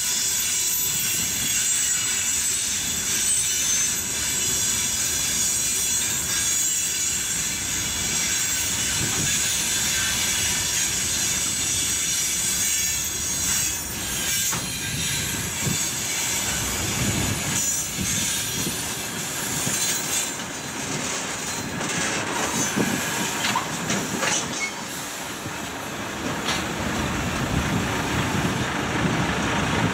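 Freight wagons rolling past close by: a steady rumble of steel wheels on rail, with a high-pitched wheel squeal that fades about two-thirds of the way through. Sharp clicks of wheels over the rail joints come through in the second half.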